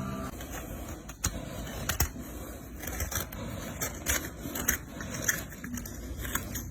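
A farrier's hand tools working a horse's hoof: irregular scraping with sharp clicks and knocks, strongest about a second and two seconds in.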